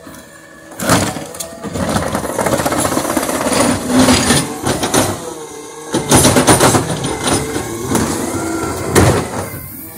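Garbage truck's cart tippers lifting and dumping wheeled trash carts into the hopper: loud rattling and clattering with several sharp bangs as the carts are tipped and shaken out. The truck's engine and a faint whine run underneath.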